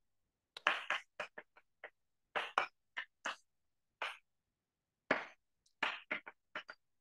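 Chalk writing on a blackboard: about a dozen short, irregular scratches and taps, with dead silence between them.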